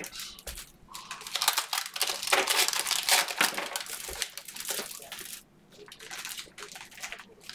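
Foil trading-card pack wrappers crinkling as packs are handled and opened, in irregular bursts that ease off about five and a half seconds in.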